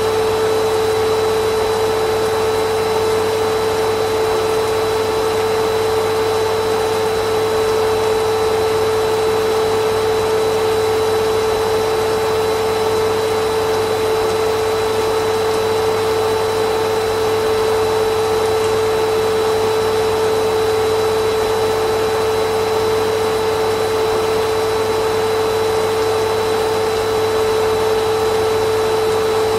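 Vacuum cleaner running steadily and unchanging: a constant rush of air with one steady mid-pitched tone.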